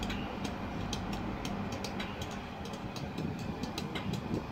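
LNER Class 91 electric locomotive standing still, giving off a steady low hum, with scattered light clicks.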